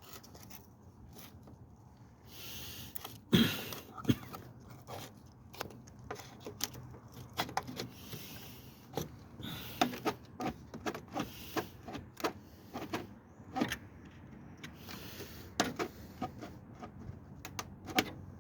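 Irregular clicks and knocks of work on a car, with a louder knock about three seconds in.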